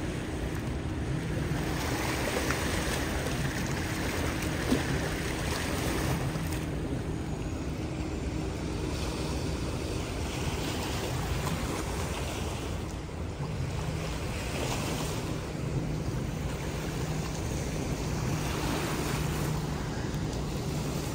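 Steady rush of the fast-flowing Rhine river, with wind buffeting the microphone.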